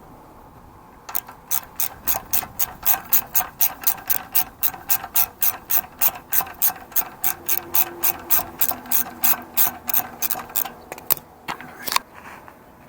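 Socket ratchet clicking in a quick, even rhythm of about four to five clicks a second while backing out the last exhaust mounting bolt on a Honda Grom. The clicking stops about eleven seconds in, with a couple of last clicks after.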